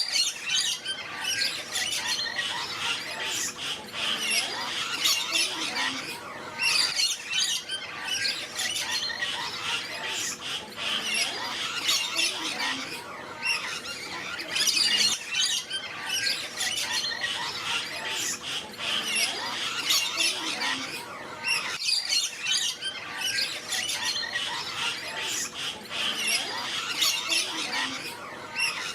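Many parrots squawking and chattering together, a dense tangle of overlapping calls without a break.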